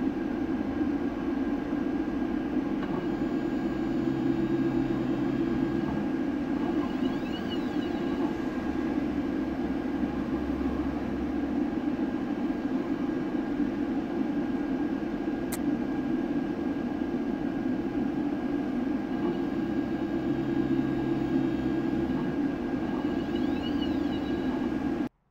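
Phrozen Shuffle resin 3D printer running mid-print: a steady machine hum, with a lower drone swelling twice, about three seconds in and again near the end. There is a single sharp click midway.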